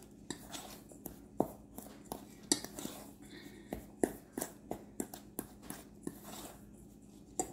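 Utensil knocking and scraping against a mixing bowl in irregular clicks, about two or three a second, as a crumbly cobbler topping of flour, sugar and egg is stirred.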